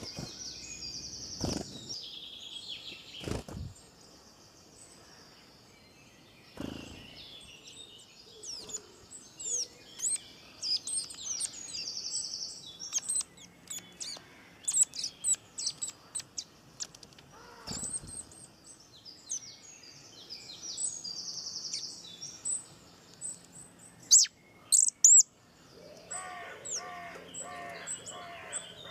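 Birds chirping and trilling in many short, high calls, with a few dull knocks early on and again about two thirds of the way through.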